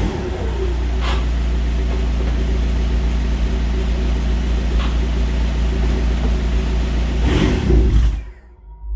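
Volkswagen Passat 2.0 TDI (BHW) four-cylinder turbodiesel idling steadily through a cat-back exhaust, given one brief rev about seven seconds in. The engine sound then drops away abruptly.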